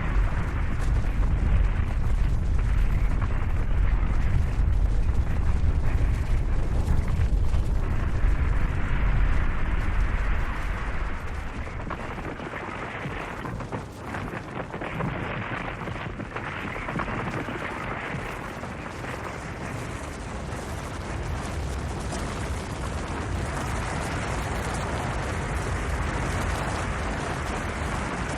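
Snow avalanche: a heavy, continuous rumble with a broad hiss of moving snow, easing after about ten seconds into a lighter, steady hiss.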